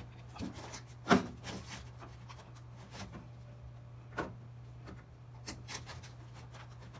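Rubber hose being pushed and worked onto the plastic outlet of a washer drain pump housing, rubbing against the plastic, with a few sharp clicks and knocks from the pliers and spring hose clamp. The loudest knocks come about a second in and again around four seconds in.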